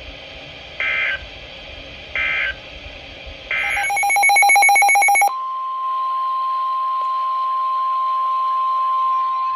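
Emergency Alert System signalling on NOAA Weather Radio: three short bursts of digital SAME data tones about a second and a half apart, then a loud rapid beeping for under two seconds, then the single steady warning alarm tone.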